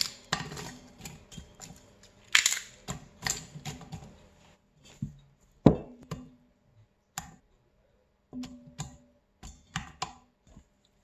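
Pieces of scooped-out zucchini flesh dropped by hand into a stainless steel pot onto Swiss chard stalks: irregular light knocks and rustles with short quiet gaps, the sharpest knock about halfway through.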